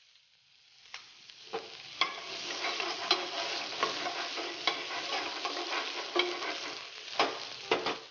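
Chopped onion and garlic sizzling in hot oil in a frying pan while being stirred, with a utensil clicking against the pan several times. The sizzle swells over the first two seconds and drops away near the end.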